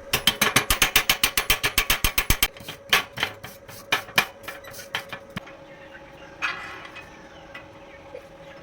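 Mechanical clicking: a fast, even run of sharp clicks, about nine a second, for the first two and a half seconds, then slower, scattered clicks for a few seconds more.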